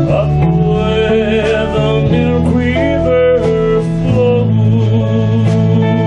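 Country band playing live: electric bass, electric guitar and drums, with a lead line bending in pitch over a steady beat.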